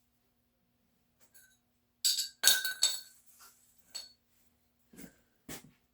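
Metal hand tools clinking and knocking against each other: a few sharp clinks with short metallic ringing, the loudest cluster about two seconds in and smaller ones after.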